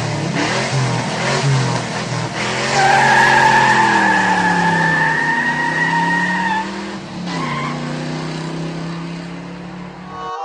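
Racing car engine running and revving, its pitch sinking and then climbing again. Tyres squeal in a long, steady screech from about three seconds in until about seven seconds in. The sound cuts off abruptly at the end.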